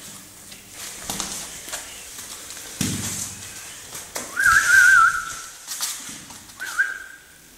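A person whistling two notes. The first, about four and a half seconds in, rises and warbles, then is held for over a second and is the loudest sound. The second, shorter one rises and holds near the end. Scattered knocks and rustling come in between.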